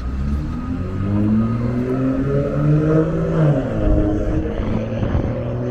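Orion VII diesel city bus engine accelerating: its pitch climbs steadily, drops sharply about three and a half seconds in as the transmission shifts up a gear, then starts to climb again.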